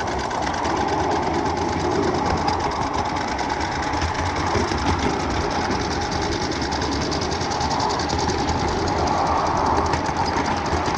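Ridable miniature train running on track: a steady, rapid metallic clatter of small wheels rolling on the rails, heard close up.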